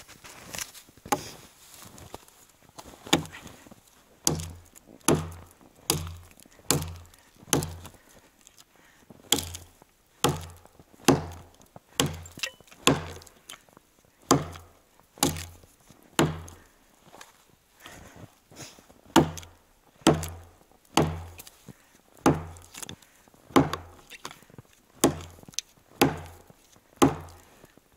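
A forged 'Burunduk' axe on a 60 cm handle chopping into the base of a standing tree trunk to fell it. The blows come steadily at about one a second, each a sharp crack with a dull thud, with a few brief pauses.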